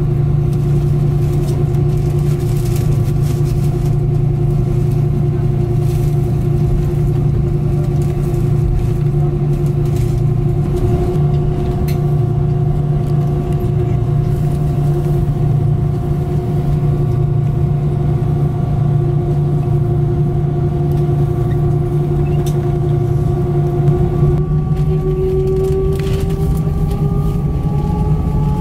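Airbus A319 jet engines heard from the cabin over the wing, a steady low drone and whine at idle while taxiing. Near the end the whine starts rising in pitch as the engines spool up for the takeoff roll.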